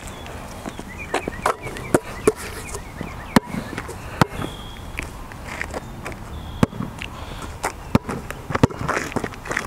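Basketball bouncing on an asphalt court as a player dribbles: single sharp bounces at uneven spacing, about nine in all.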